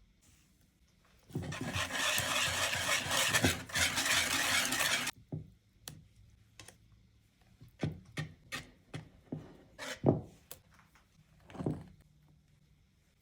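Kitchen preparation sounds: about four seconds of dense, loud noise that starts and stops abruptly, followed by scattered clicks and knocks of utensils and dishes.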